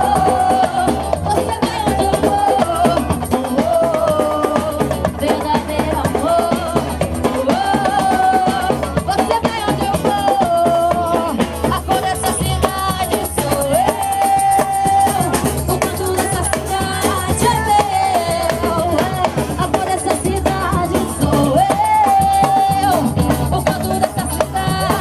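Live samba batucada: a Brazilian percussion group playing a steady drum groove with shakers, under a sung melody.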